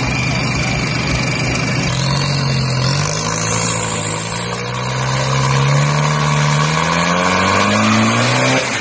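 Toyota Fortuner turbo-diesel engine running steadily on the start line, then revs climbing slowly for several seconds while the SUV stays put, building boost for the launch. A high whistle rises alongside, the turbo spooling up. The sound cuts off abruptly just before the end.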